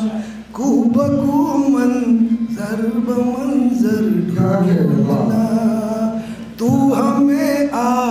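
A man singing Urdu ghazal verse unaccompanied, in the melodic recitation style of tarannum, with long held, wavering notes and two short pauses between phrases.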